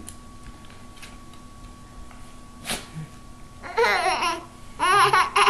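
A baby giggling in two short bursts of high-pitched laughter, the first a little over three and a half seconds in and the second near the end.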